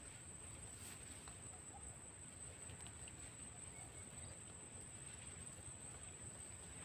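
Faint outdoor field ambience: a steady high-pitched whine and a low rumble, with a few faint ticks.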